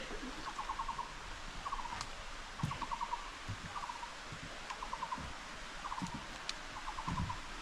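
Frogs calling: short pulsed trills repeated about once a second, with a few faint low thumps between them.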